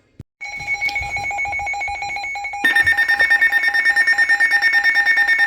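Weather alert radio alarms going off after a click. One beeping alarm starts about half a second in, and a second, louder alarm with a fast pulsing beep joins at about two and a half seconds.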